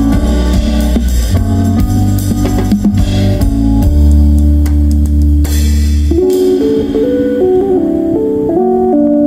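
Live jazz trio of keyboard, electric bass and drum kit playing an instrumental passage. About six seconds in, the bass and drums drop out and the keyboard carries on alone with a stepping melody.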